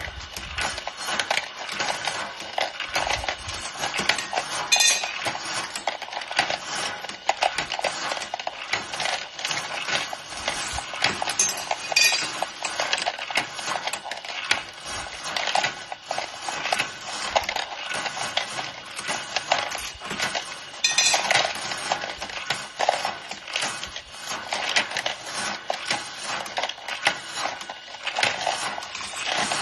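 3D-printed bullet dropper on a Dillon progressive reloading press in operation: continuous rattling and clicking of bullets being fed and dropped, with occasional louder clinks.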